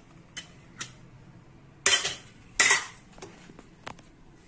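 Metal pressure cooker lid being opened and taken off: two small clicks, then two loud metallic clanks about two and three seconds in, then a few light ticks.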